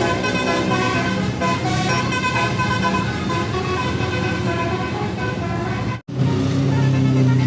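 Tour bus 'telolet basuri' multi-note air horn playing a quick melody over the bus engine and road noise. It breaks off abruptly about six seconds in, and a lower held tone follows.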